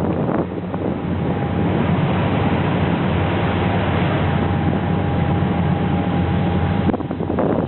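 A river boat's engine drones steadily under way, with wind on the microphone. The drone and rush drop away suddenly near the end.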